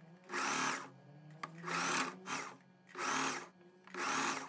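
Domestic electric sewing machine stitching a narrow double-folded hem in four short runs, stopping briefly between each as the fabric is guided.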